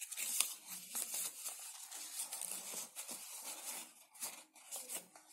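Folded paper units rustling and crinkling as one is slid into the pockets of another, in many small irregular crackles.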